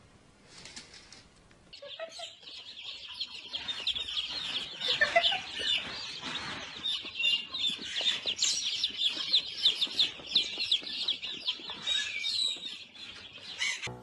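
Many baby chicks peeping at once, a dense stream of high overlapping chirps that starts about two seconds in.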